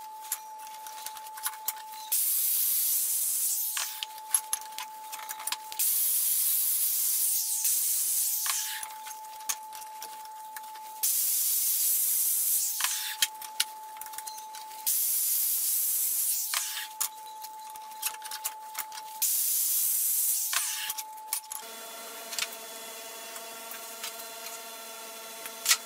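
Angle grinder grinding a steel square tube, in five passes of a few seconds each, with the grinder's steady whine in the quieter stretches between them. Near the end the grinding stops and a steady hum with several tones takes over.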